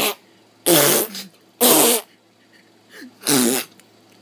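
A series of loud farting sounds, four short blasts about a second apart, each with a low buzzing pitch.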